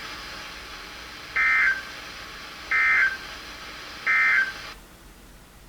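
Three short bursts of EAS/SAME digital data tones over weather radio, a buzzy warble a little over a second apart: the End of Message code that closes a NOAA Weather Radio alert broadcast. A steady radio hiss runs beneath them and cuts off shortly after the third burst as the transmission ends.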